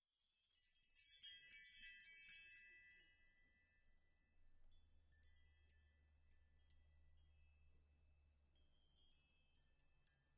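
Logo intro sound of high, tinkling chimes. A quick cluster of bright chime notes sounds from about one to three seconds in, followed by scattered single high pings.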